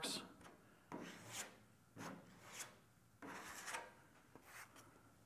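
A body filler spreader scraping body filler: about four short, faint strokes as filler is swiped onto the panel and scooped off the mixing board.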